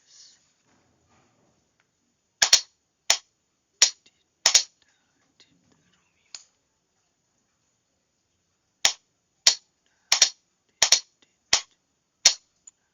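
Morse key clicking as it sends single letters in Morse code: short sharp clicks, some in quick pairs, in two runs with a quiet gap of about two seconds between them.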